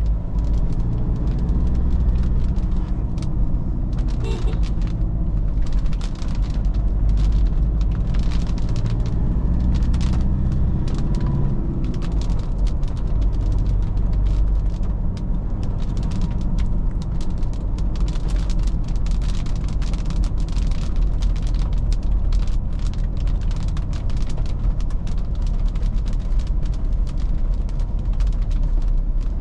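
2013 Toyota Fortuner's 3.0-litre four-cylinder turbodiesel running while the SUV drives on, with its engine note clearest over the first dozen seconds, under steady tyre noise on a wet road. Raindrops strike throughout as many irregular sharp ticks.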